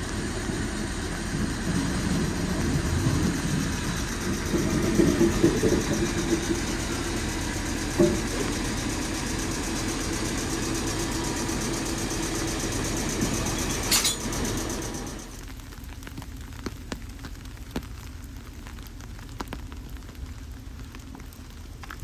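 Oigawa Railway passenger train running on the rails, a steady rumble with a knock about eight seconds in and a short high squeal about fourteen seconds in. Soon after, the running noise drops away to a much quieter background as the train slows into the station.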